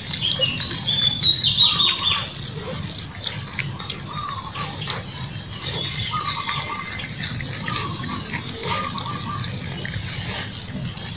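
Puppies eating cooked rice from a metal tray, close up: wet chewing, smacking and snuffling with many small clicks. Short high chirps sound over it, thickest in the first couple of seconds.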